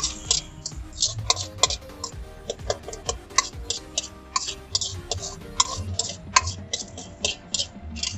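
Steel ladle clicking and scraping against an aluminium kadai while chickpea curry is stirred and heated, a string of irregular sharp clicks, roughly two or three a second.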